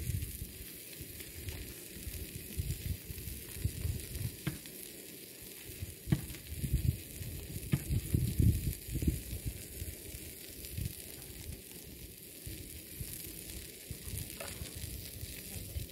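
Food sizzling in a pan on a portable gas camping stove: a steady hiss, with irregular low rumbles and a few light clicks.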